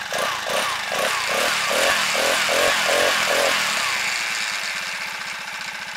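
A Bike Berry 49cc four-stroke motorized bicycle engine running, with a pulsing that repeats about three times a second. It grows louder over the first three seconds or so, then eases down.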